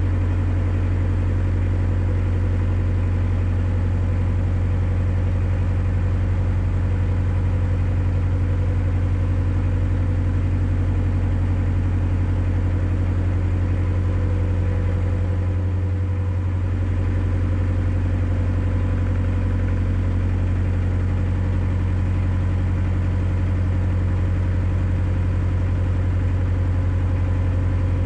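Narrowboat's diesel engine running steadily while the boat cruises, an even low drone.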